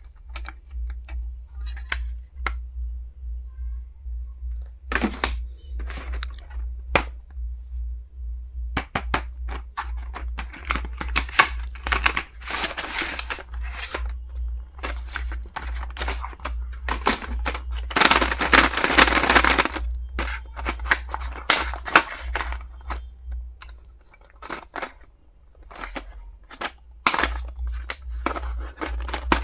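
Stationery and its packaging being handled: a string of clicks and taps, with stretches of packaging rustling and tearing about twelve seconds in and again from about eighteen to twenty seconds. A low throb pulses about twice a second underneath.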